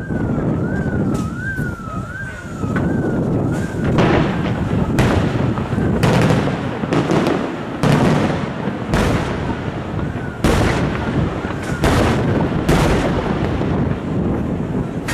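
Aerial firework shells bursting, a series of about a dozen sharp booms starting about four seconds in, over a steady low rumble. In the first few seconds a siren wails up and down, and it comes back faintly later.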